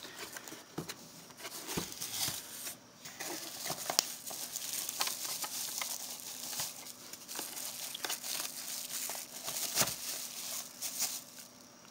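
Plastic wrapping crinkling and rustling as a wrapped kitchen scale is handled and pulled out of its cardboard box, with many small crackles and one sharper click about four seconds in.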